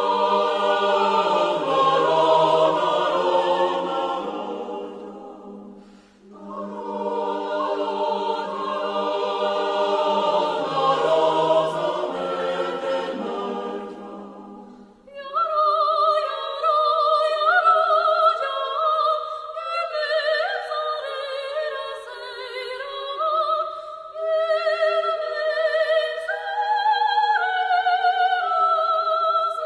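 Mixed chamber choir singing an Armenian folk song in choral arrangement, with a brief breath pause about six seconds in. About halfway through the low voices drop out and the higher voices carry the melody on alone, with vibrato.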